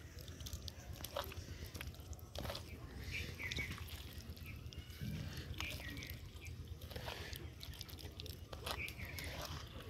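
Hands squishing and kneading a wet, creamy marinade into a boiled chicken in a clay bowl, with soft squelches and small irregular clicks.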